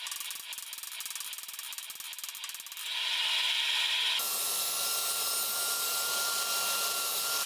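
Metalworking in a workshop: fast rasping, scraping strokes for about four seconds, then a steady hissing, whirring power-tool sound with a faint high whine that cuts off suddenly near the end.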